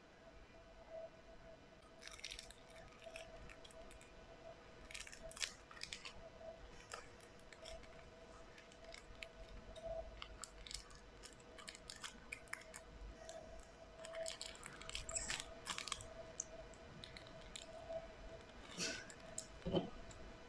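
Scattered soft clicks and crackles of hands working slime and craft materials, irregular and close, with a sharper knock near the end.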